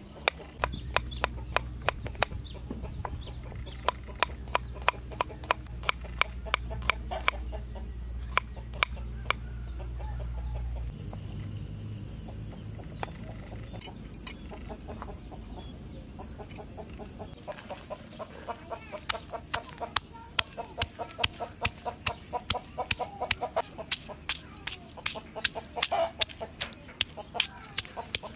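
Knife slicing garlic cloves on a wooden chopping board: a string of sharp taps, about three a second, that pauses near the middle and picks up again. Chickens cluck in the background, and a low hum runs through the first part.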